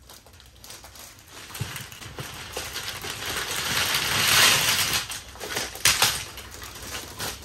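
A large heap of plastic highlighter pens pouring out of a canvas tote bag onto carpet: a rattling clatter of many pens knocking together that builds to its loudest about four and a half seconds in, with a few last pens dropping near the end.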